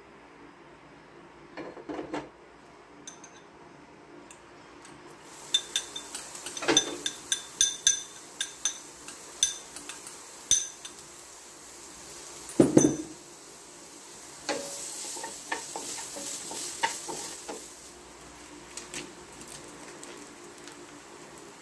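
Chopped onion and garlic frying in hot oil in a nonstick wok: sizzling and crackling that starts about five seconds in. A spatula stirs and knocks against the pan, once loudly near the middle.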